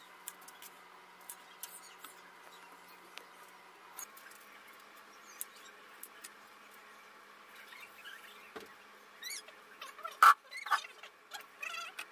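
Scattered light clicks and taps of a kitchen knife on a plastic cutting board as onions are peeled and cut. Near the end comes one sharp, louder clack, together with several short, wavering high squeaks.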